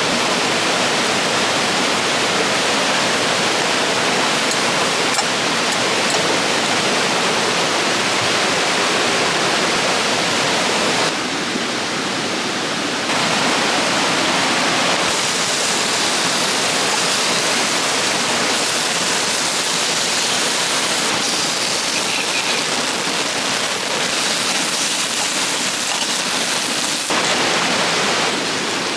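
River water rushing over rocks in a steady, even roar, with abrupt small shifts in level and tone several times, as if between different spots along the river.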